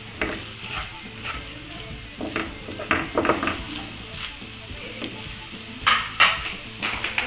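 Spatula stirring and scraping macaroni around a nonstick frying pan, in irregular scrapes and taps, the loudest two close together about six seconds in. A light sizzle from the frying pasta runs underneath.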